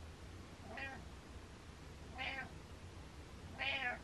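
Domestic cat meowing three times, about a second and a half apart, each meow louder than the one before.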